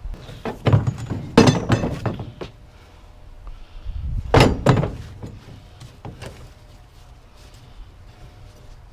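Scattered thuds and knocks of junk being handled and dropped: a hit about a second in, a quick run of knocks just after, another pair of heavy thuds near the middle, then a lighter knock.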